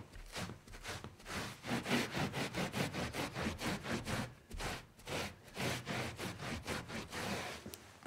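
Rapid back-and-forth scrubbing strokes wiping up a spill on a hard surface, about four strokes a second, with a short pause about halfway through.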